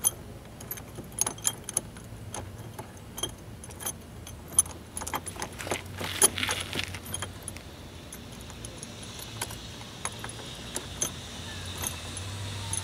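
Small metal clicks and clinks of bolts, washers and a metal bracket being handled and fitted into the car's lower honeycomb grille. The clicks come thick and fast for the first several seconds, then thin out to scattered ticks.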